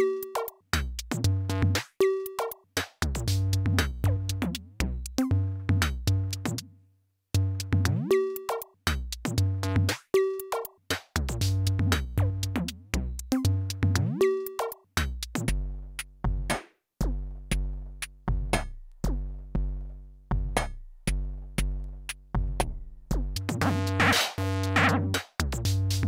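Teenage Engineering PO-32 Tonic pocket drum machine playing a looped electronic beat from a custom sound pack: kicks, snappy hits and pitched synth tones with falling pitch sweeps. About halfway through the pattern changes to deeper stepped bass notes, and near the end it turns denser and brighter.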